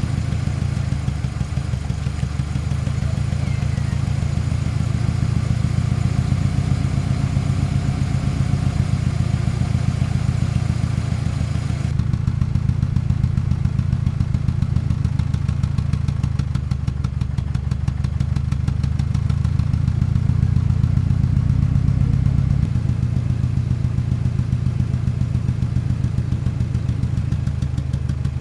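1997 Ford Ranger's 2.3-litre four-cylinder engine idling roughly, with a steady pulsing beat. The owner traced the rough idle to a dead cylinder 1 at 60 psi against 180 psi on the others, which he takes for cracked piston rings.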